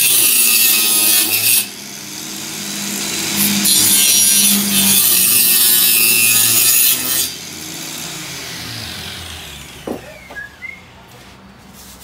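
Circular-saw blade mounted through a workbench, used as a table saw, cutting a wooden board twice: a loud, hissing cut over the motor's hum for the first second and a half, then a second, longer cut from about three to seven seconds in. After the second cut the motor winds down.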